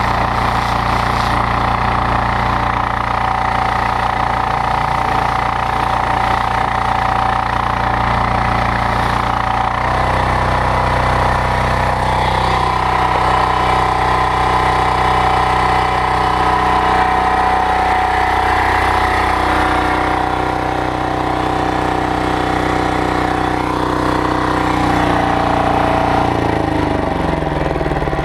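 Loncin diesel engine of a pressure washer running steadily at set revs, driving the high-pressure pump through a belt. Its tone changes about ten seconds in, and its pitch drops near the end.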